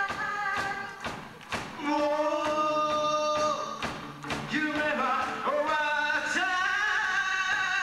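A live rock band with a male singer and electric guitars, bass and drums. The held sung and guitar notes change every second or two over steady drum hits.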